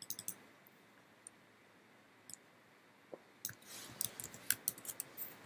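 Computer keyboard typing: a few faint key clicks at the start, then a quick run of keystrokes from about three and a half seconds in.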